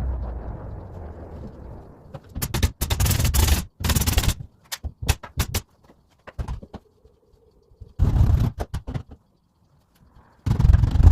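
Woodworking tool sounds: a low rumble fades over the first two seconds, then come several loud bursts of noise about a second long, with sharp clicks and knocks between them.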